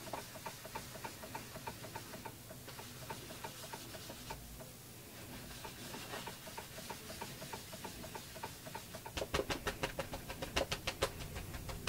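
A moist baby wipe being worked over wet acrylic paint on an art journal page: faint soft rubbing strokes, about three a second, as it swirls the paint. About nine seconds in it turns to quicker, louder dabs as the wipe is patted on the paper to blend out the swirl marks.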